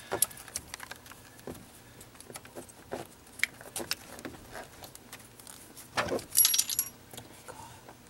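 Irregular metallic clicks and knocks as a steel fuel rail with its fuel injectors is wedged and fitted into place against the engine, with a louder burst of ringing metal clinks about six seconds in.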